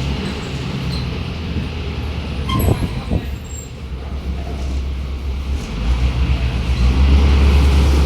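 Mercedes-Benz OF-1721 bus's diesel engine running with a steady low hum, with a few short clicks and rattles near the middle. The engine gets noticeably louder about six seconds in.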